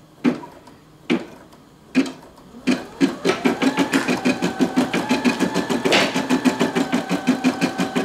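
Brother PE550D embroidery machine starting to stitch: a few slow, separate needle strokes, then fast, even stitching from about three seconds in with a steady motor whine.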